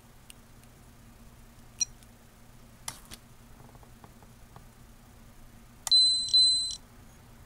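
Peak Atlas ESR70 capacitance and ESR meter beeping twice, two short high beeps of the same pitch back to back, as it finishes measuring a large electrolytic filter capacitor. A couple of sharp clicks come a few seconds earlier.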